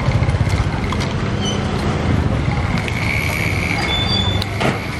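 Motorbike engine running close by, with a steady high whine joining about three seconds in and a few sharp clicks and knocks.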